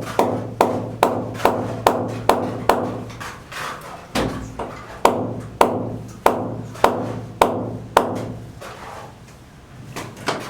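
Repeated hammer blows in a steady rhythm, a little over two a second, each with a short ringing decay. After a brief pause about four seconds in, a second run slows slightly and stops about eight seconds in.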